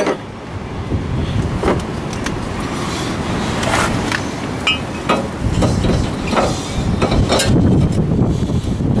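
Scattered metal clanks and knocks as a cast-iron brake rotor is handled and slid onto the front hub studs, over a steady low background rumble.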